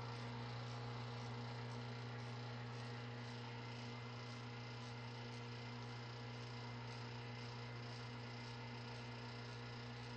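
A faint, steady low electrical hum that does not change, with no other distinct sound.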